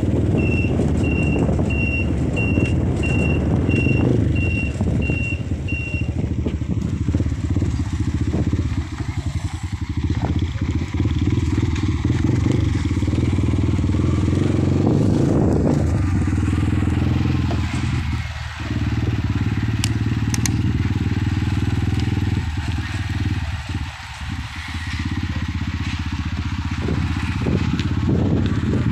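Dirt bike engine running steadily while riding, easing off briefly a few times. During the first six seconds there is a string of short, evenly spaced high beeps, about one every 0.7 seconds.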